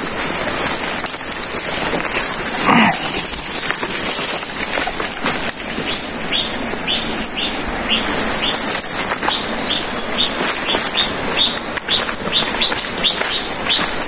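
A steady, high insect drone over forest ambience, with a series of short, sharp chirps starting about five seconds in, roughly two a second and quickening toward the end.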